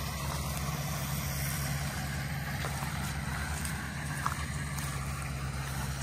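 John Deere 5100M tractor's diesel engine running steadily, a low, even hum that holds its speed.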